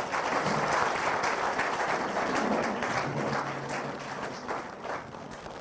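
Audience applauding, the clapping gradually dying down toward the end.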